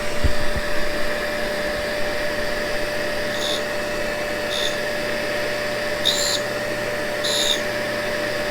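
Tool and cutter grinder running with a steady hum and a constant whine. From about three seconds in, short bursts of high hiss recur every second or so as a dull carbide cutting tool is passed against the coarse grinding wheel to sharpen it.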